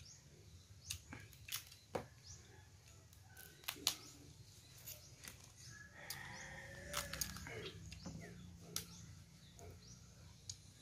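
Boiled blue crab shells being cracked and pulled apart by hand: scattered sharp cracks and snaps, a second or more apart, over faint background.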